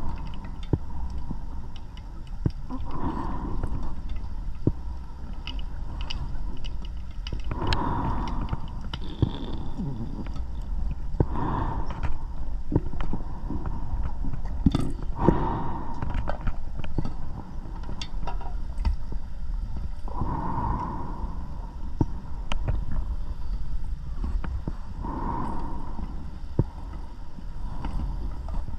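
Underwater recording of a scuba diver breathing through a regulator: a burst of exhaled bubbles gurgles about every four to five seconds over a steady low rumble, with scattered small clicks and taps.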